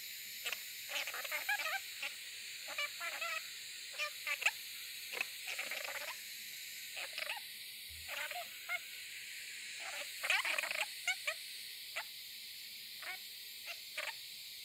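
Swivel chair squeaking in short, irregular creaks as a seated person turns slowly on it.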